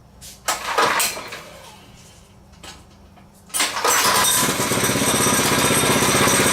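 A minibike's small engine being pull-started cold with the choke on: a rope pull about half a second in that does not catch, then about three and a half seconds in the engine catches and settles into a steady run.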